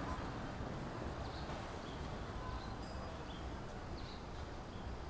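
Outdoor background: a steady low rumble with a few short, faint high chirps from birds scattered through it.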